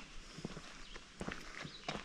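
Footsteps of a person walking on a trail: an irregular run of short steps and scuffs, several a second.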